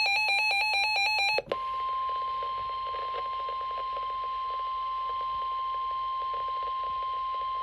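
Emergency Alert System severe thunderstorm warning sounding over weather radio. It opens with about a second and a half of rapidly warbling SAME header data tones. After a brief break comes the steady single-pitch weather radio alert tone, with a faint crackle of radio static underneath.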